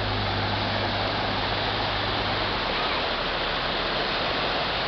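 Steady rush of floodwater across a street as cars drive slowly through it, tyres churning up spray. A low engine hum drops away about halfway through.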